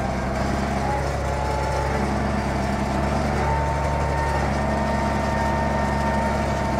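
ZTS 16245 tractor's diesel engine running steadily under load while pulling a corn seeder, heard from inside the cab. A steady high whine sits over the engine and rises a little about halfway through.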